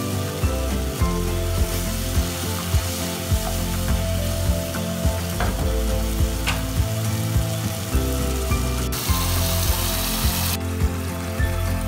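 Spiced masala gravy sizzling and bubbling in a kadai, with a louder hiss for about two seconds near the end. Background music with a steady beat plays under it.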